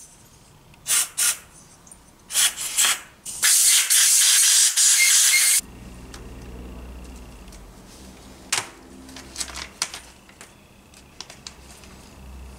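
Aerosol solvent cleaner sprayed onto moped engine parts: a few short bursts, then one long spray of about two seconds that stops sharply. After it come a low hum and a few faint clicks.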